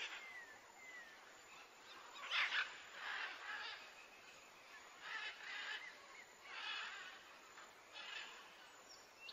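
Faint bird calls: a few short whistled chirps, then a series of brief, harsher calls spaced a second or so apart.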